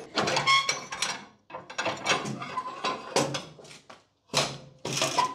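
Homemade metal jig being taken off a car's front end: irregular metallic clanks and rattles, some with a brief ring.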